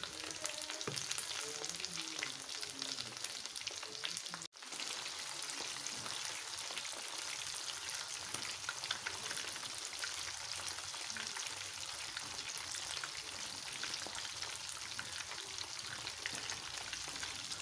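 Panko-breaded cuttlefish pieces deep-frying in oil in a pan, a dense, steady crackling sizzle over turned-down heat. The sound cuts out for an instant about four and a half seconds in.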